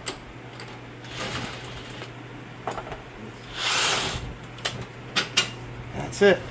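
Impact wrench running in short bursts, the strongest about four seconds in, spinning the already-loosened lower mounting nut off a Crown Victoria/Grand Marquis rear shock bolt. Several sharp metallic clicks and clinks follow near the end as the nut and bolt come free.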